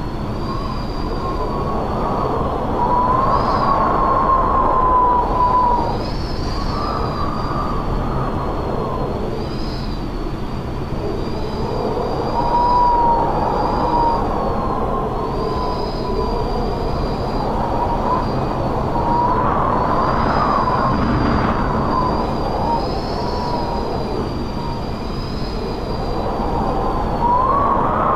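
Strong wind blowing in gusts, with a wavering whistle that rises and falls as each gust swells and eases.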